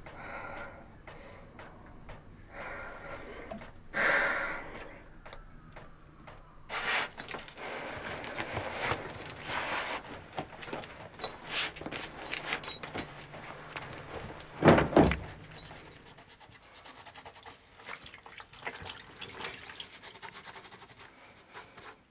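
Water splashing at a bathroom sink as a woman washes her face, with her breathing, and one loud heavy thunk about two-thirds of the way through.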